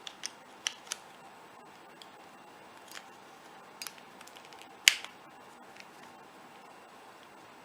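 Plastic pieces of a 3x3 Rubik's Cube clicking as a corner piece is worked into the top layer: a few sharp clicks in the first second, scattered lighter ticks, and one louder snap about five seconds in as the piece snaps into place.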